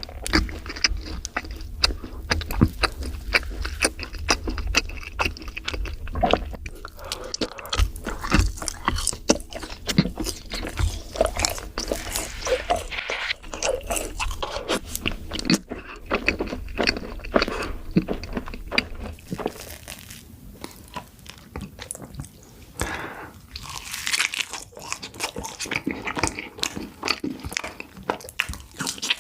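Close-miked eating of yakgwa, Korean fried honey cookies: bites and chewing with crunching and many small mouth clicks, irregular throughout. A low hum sits underneath and stops about two-thirds through.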